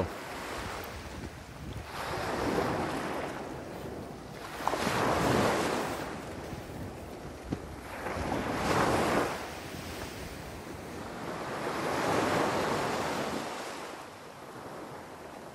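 Small sea waves washing onto the shore, four slow swells a few seconds apart.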